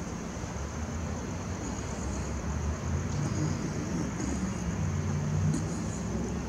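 Steady low outdoor rumble, like distant traffic, under a constant thin high hiss, with no clear single event.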